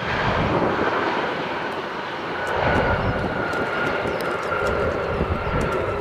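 Ryanair Boeing 737 MAX 8-200's CFM LEAP-1B jet engines running as the airliner rolls along the runway after landing: a steady whine over a broad rush. A heavier low rumble joins about two and a half seconds in.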